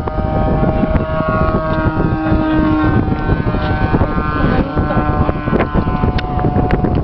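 Radio-controlled model Harrier jet in flight, its motor giving a steady whine of several tones that drift slightly in pitch, over heavy wind noise on the microphone.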